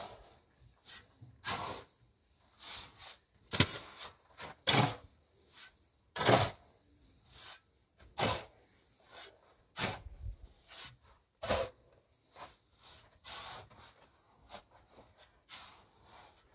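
Irregular knocks and scrapes, roughly one every second or two, from hand work on a stone wall: stones and mud being handled and set in place.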